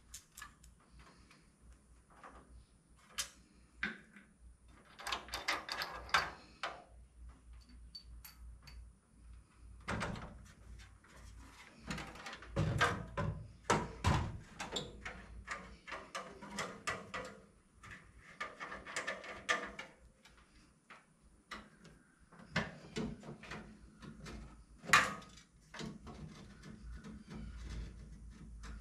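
Irregular knocks, clicks and rattles of parts and tools being handled during work on a car's front end, in clusters, with one sharper knock near the end.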